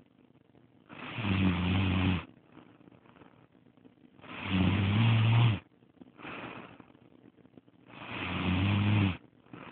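A woman snoring in her sleep: three loud snores about three and a half seconds apart, each lasting about a second and swelling as it goes, with a softer breath between them.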